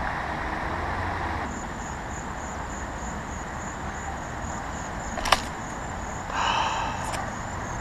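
Outdoor ambience: a steady low hum of distant road traffic, with insects chirping in fast, even pulses from about a second and a half in. A sharp click comes about five seconds in, and a brief louder sound follows just after six seconds.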